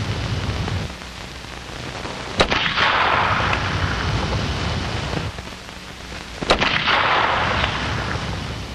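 Two gunshots about four seconds apart, each sharp crack trailing off over about two seconds. They are shots fired into the ground short of targets to make the bullets ricochet.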